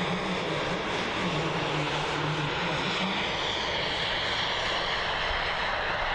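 Engine of a quarter-scale model F-104 Starfighter jet in flight: a steady rushing noise with a low hum over the first few seconds and a high whine that falls slightly in pitch in the second half.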